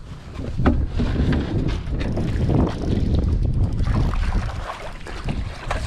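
Wind buffeting the microphone in a low rumble, over water splashing around a landing net dipped into the shallows beside the boat. A couple of sharp knocks stand out, about a second in and near the end.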